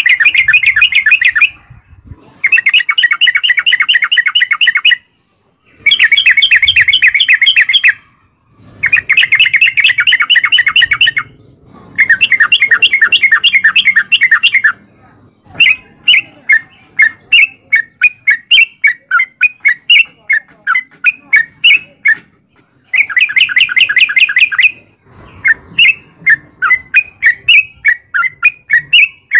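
Yellow-vented bulbul (trucukan) singing: long, very rapid rolling chatters of about two to three seconds each, separated by short pauses, giving way about halfway through to a fast run of separate sharp notes, with one more rolling chatter near the end.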